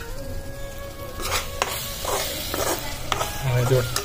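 Tomato masala simmering in oil in a kadhai, cooked down to the stage where the oil separates, with a metal spatula scraping and clicking against the pan a few times, over background music.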